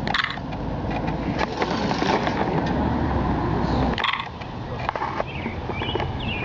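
Outdoor background noise: a steady low rumble with scattered clicks and knocks, dipping briefly about four seconds in.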